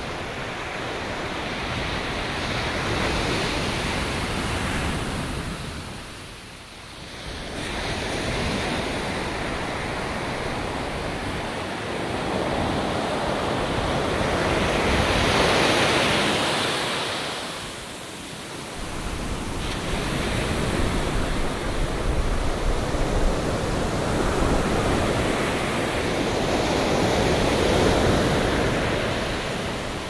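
Ocean surf: waves breaking and rushing up the sand in slow swells. The roar fades twice between sets and builds again.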